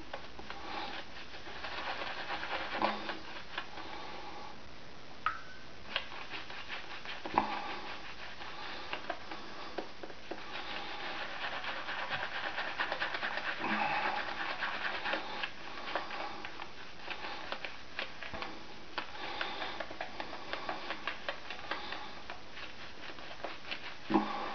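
Boar-bristle shaving brush working Williams soap into a lather on the face: a wet rubbing and scrubbing with many small crackles from the foam.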